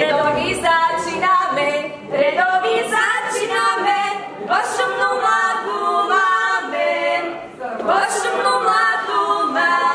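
A group of women singing a Slovak folk song unaccompanied, in phrases of two to three seconds with short breaths between them.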